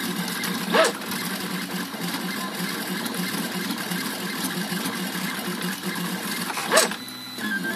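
FDM 3D printer's stepper motors buzzing steadily as the print head moves quickly back and forth laying down infill. Twice, about a second in and near the end, a brief louder whirr rises and falls in pitch, the sound of a fast travel move.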